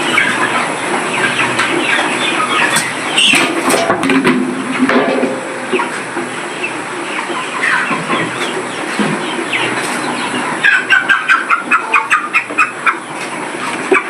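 A flock of black Australorp chickens clucking and peeping all at once, many birds calling over each other. Near the end one run of calls repeats quickly, about four a second.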